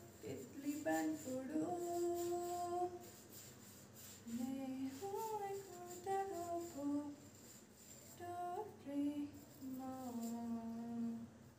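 A woman singing a tune softly to herself without words, holding and sliding between long notes.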